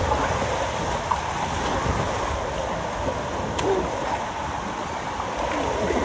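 Steady rush of water in a water-park wild-river slide channel, flowing close around the riders as it carries them along.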